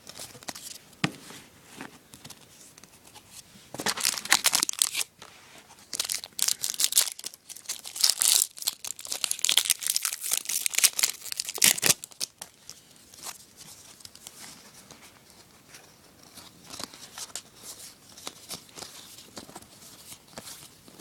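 A hockey card pack wrapper being torn open and crinkled: a short burst about four seconds in, a longer stretch of tearing and crumpling from about six to twelve seconds in, then softer rustling of handled cards and wrapper.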